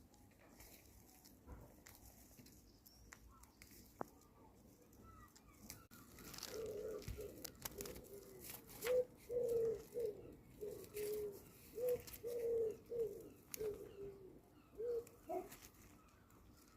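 A dove cooing: a run of short, low coos, about two a second, starting about six seconds in and stopping shortly before the end.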